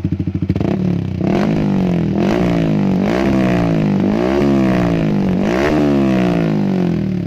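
Yamaha R15's single-cylinder engine revved repeatedly through a stainless racing exhaust, its pitch climbing and falling several times in quick succession before easing back toward idle near the end.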